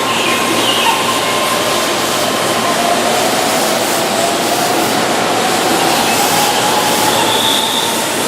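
Keihan electric train running, a steady loud rush of wheel and running noise with a faint motor whine that slowly rises in pitch through the middle.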